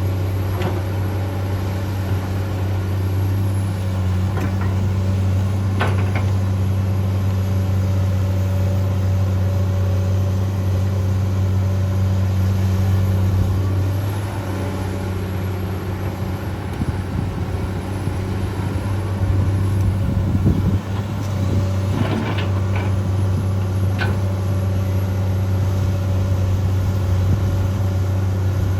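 Komatsu PC200-8 excavator's six-cylinder diesel engine running steadily with a low hum, easing off for a few seconds midway and picking up again, with a few sharp clanks from the working machine.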